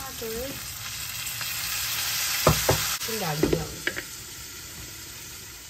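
Bone-in goat pieces frying and sizzling in a pan with onion, chilli and spice mix while being stirred, the spatula knocking sharply against the pan twice about two and a half seconds in.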